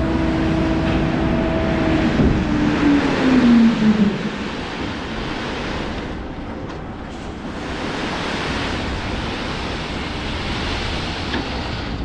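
A vehicle's engine hum, steady at first, then dropping in pitch and fading about four seconds in, leaving a steady rushing noise of wind or road.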